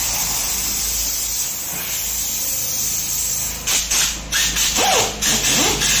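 A steady air hiss, then from about three and a half seconds in a pneumatic drill runs in short bursts, its pitch sweeping up and down as it bores out a tubeless tyre's puncture hole in the tread for a mushroom plug repair.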